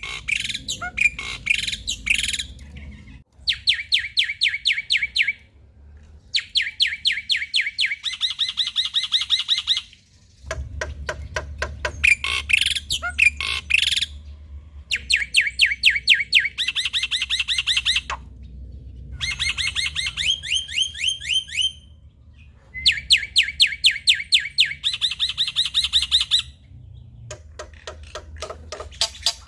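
Male black-winged myna (jalak putih) singing loudly in bouts of rapid repeated notes, each bout lasting about two seconds with short pauses between.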